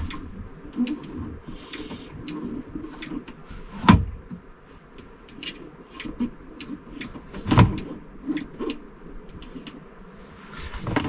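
Irregular clicks and knocks, with two louder thumps about four and seven and a half seconds in.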